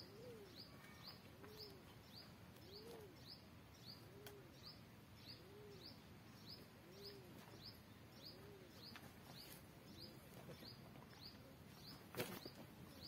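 Birds calling faintly. A small bird repeats a short, high chirp about twice a second, and a lower rising-and-falling call comes every second and a half or so, stopping about two-thirds of the way through. There is a brief knock near the end.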